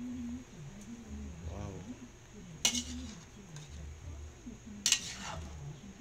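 Metal spatula stirring noodles in a large aluminium wok, knocking against the pan twice with sharp clanks, about two and a half and five seconds in.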